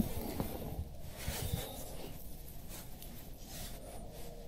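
Faint rustling and scraping of things being handled, with a few light clicks in the first second and a half.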